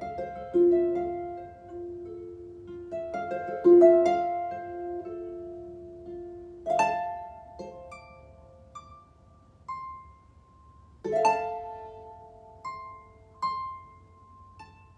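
Harp played slowly and meditatively: single plucked notes ring out and fade, with a few fuller chords struck about a second in, near four seconds, near seven seconds and about eleven seconds in.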